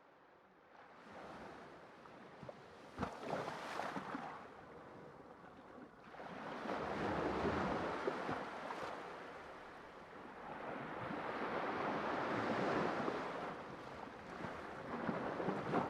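Sea waves washing in on a shore, fading in from silence and then rising and falling in slow surges every few seconds, with a crackling splash as some waves break.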